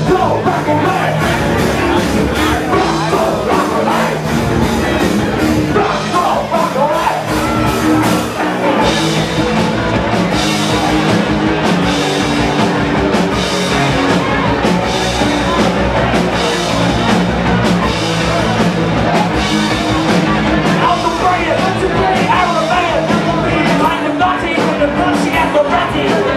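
Live rock band playing loudly in a club, heard from within the audience: drums, electric guitar and vocals. The drums and cymbals drive a steady beat that grows stronger about nine seconds in.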